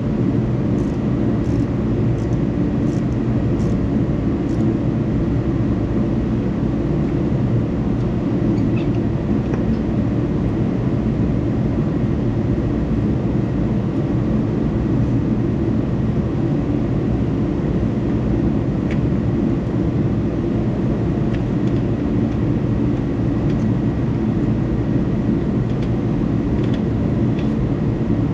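A loud, steady mechanical drone that stays level throughout, with a few faint clicks in the first few seconds.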